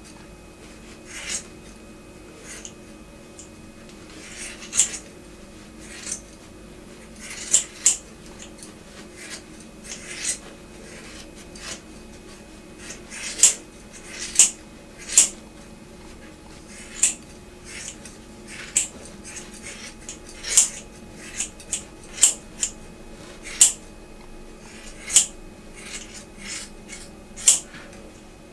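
Scissors snipping hair: about two dozen short, crisp snips at an uneven pace, some in quick pairs, over a faint steady hum.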